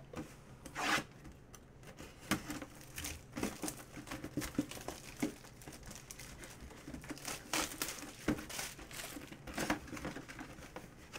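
Plastic shrink wrap being torn and crinkled off a cardboard mini-helmet box, with irregular crackles and a few louder rips as the box is unwrapped and its flaps are opened.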